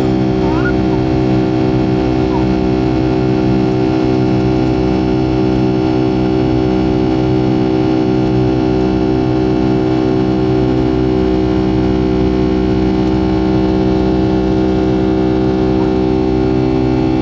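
Boeing 757-200's Pratt & Whitney PW2000-series turbofans heard from inside the cabin over the wing during the climb after takeoff. It is a steady loud drone with many held tones and a slow pulsing throb in the low end.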